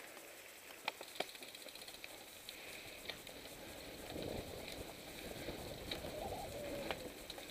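Mountain bike ride heard from the rider's own camera: tyres rolling on gravel and then dirt singletrack, with a few sharp clicks and rattles from the bike. The rolling noise grows louder about four seconds in, as the bike comes off the gravel road onto the trail.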